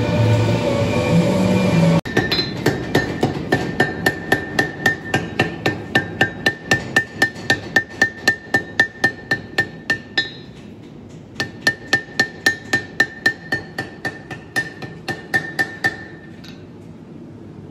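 Hand hammer forging glowing pattern-welded steel on an anvil: an even run of blows, about three a second, each with a bright anvil ring. The blows stop briefly about ten seconds in, then resume for a few more seconds before ending.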